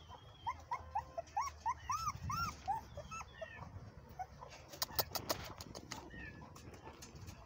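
Young puppies, about three weeks old, whimpering in a quick run of short, high cries, about a dozen in the first three seconds, then fewer. A few sharp clicks come about five seconds in.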